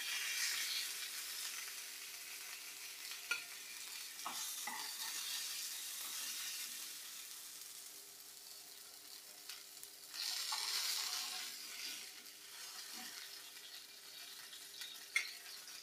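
Hot oil sizzling in a frying pan as fried mackerel are lifted out with a spatula. The sizzle swells for a couple of seconds about two-thirds of the way through, and there are a few light clicks of the spatula against the pan.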